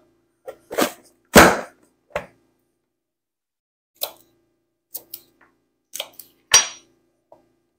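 Celery being chopped: about nine separate sharp knocks and chops from a knife on a wooden cutting board and a hand-pressed food chopper pushed through its blade grid. The loudest, heaviest knock comes about a second and a half in, with another strong one in the second half.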